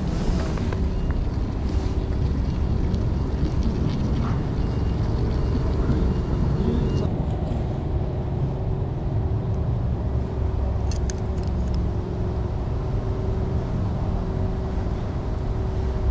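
Steady low rumble of outdoor background noise under a faint even hum, with a few faint clicks about eleven seconds in.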